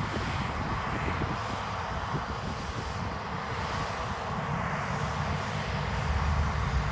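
Diesel engine of heavy harvest machinery running steadily, a continuous rumble that grows louder toward the end as the machine comes closer.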